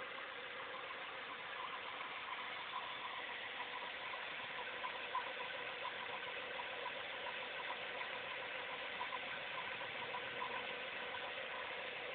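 1998 Ford Mustang's 3.8-litre V6 idling steadily, with irregular short ticks over the engine's hum. The ticking is an unidentified noise that the owner says has been getting louder over a few months and whose source he cannot find.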